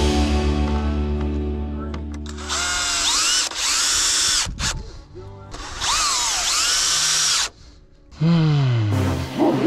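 Power drill driving screws in three bursts, each whining up to speed and winding down as the trigger is released, while background music fades out at the start.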